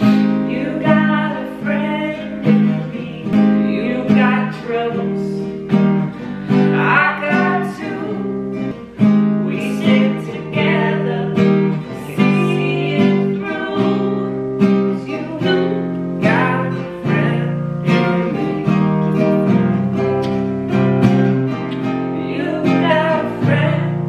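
Acoustic guitar strummed in a steady rhythm, with a man singing along.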